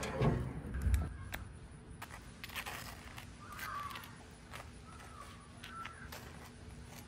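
A table knife scraping a spread across crisp grill-toasted burger buns, in short strokes, with a couple of low thumps near the start.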